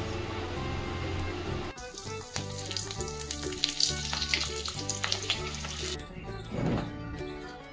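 Food sizzling as it fries, over background music.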